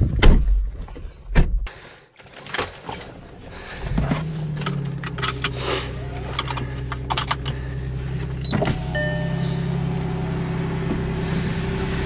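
A few clicks and knocks, then about four seconds in the B8 Audi S4's supercharged 3.0-litre V6 starts and settles into a steady idle. A short electronic chime sounds about nine seconds in.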